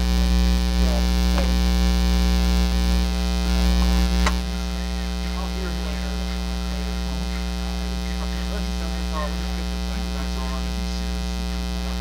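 Steady 60 Hz mains hum with a stack of overtones. The camera's AC adapter induced it into the recording: a ground-loop fault. It drops a little in level about four seconds in.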